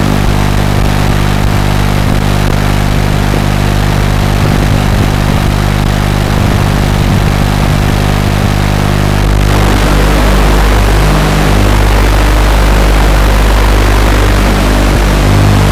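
Loud, steady buzzing hum from a small FPV quadcopter, heard through its onboard audio on the video recording, with a hiss that grows louder about nine seconds in.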